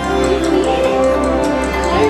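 Music playing, with soft held melodic notes over a steady low hum.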